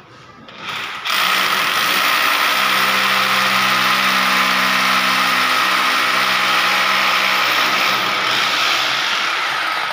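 Electric drill boring a hole into a plastered masonry wall. The motor starts about a second in and runs steadily and loudly, with the grinding of the bit cutting into the wall, and stops near the end.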